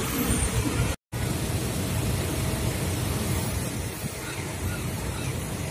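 Road traffic noise: a steady low rumble of vehicle engines and tyres, broken by a short gap of silence about a second in.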